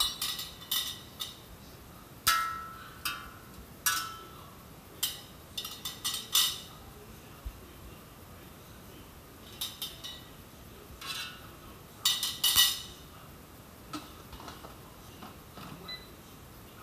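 Kitchenware clattering and clinking as it is handled: a dozen or so sharp metal knocks and clinks, some with a short ring, loudest a little after the middle.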